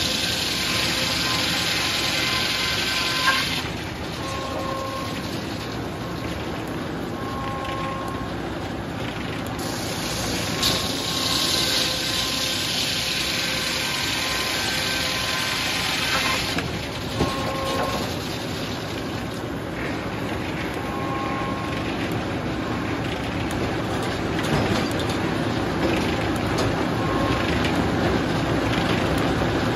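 Large circular head saw ripping 6/4 hard maple: one cut ends about three and a half seconds in and a second cut runs from about ten to sixteen seconds in. Between cuts the blade spins free and the carriage machinery runs, with short whining tones coming and going.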